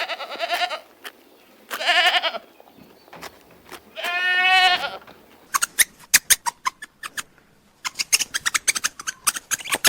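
Three wavering bleats from a sheep or goat–type farm animal, the third the longest, followed by a quick run of sharp clicks or taps.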